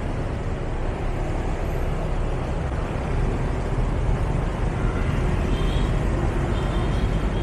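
Steady city traffic noise, a continuous low engine and road rumble, heard while riding through the streets.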